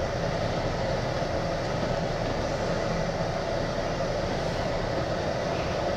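Steady engine and cab noise of a MAN TGX lorry, heard from inside the cab: an even hum and rumble at a constant level.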